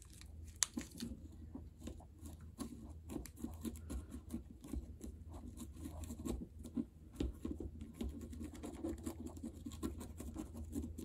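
Irregular scratching, scraping and small taps of a tiny toy spade scooping crumbly fake potting mix from a small packet into a miniature plant pot, with fingertips pressing the mix down.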